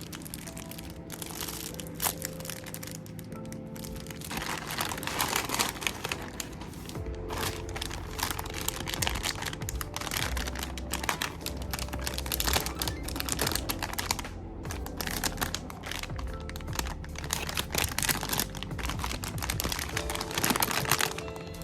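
Plastic packaging crinkling and crackling irregularly as a squishy package is unwrapped and handled, over background music.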